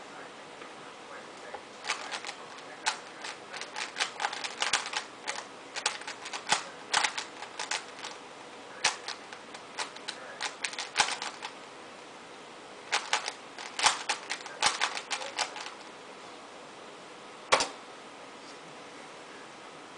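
Rubik's cube being turned by hand: quick runs of plastic clicks and clacks as the layers snap round, with a short pause in the middle. The clicking stops a few seconds before the end, and one single sharp click follows.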